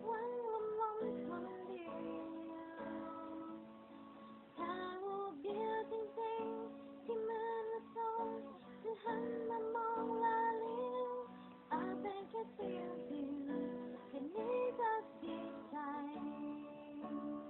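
A woman singing a Thai ballad in long, wavering held notes over strummed acoustic guitar.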